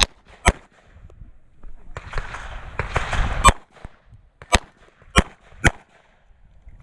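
Smith & Wesson Model 66 revolver firing single shots: one right at the start and another half a second later, then a pause with some rustling, then four sharp shots over about two seconds.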